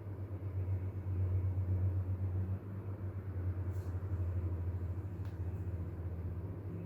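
Steady low hum of a desktop computer's cooling fans running while it boots.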